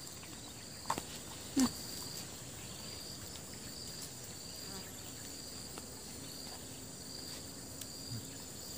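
Insects buzzing steadily in a high, slowly pulsing chorus. Two sharp clicks come about a second and a second and a half in, the second the loudest sound.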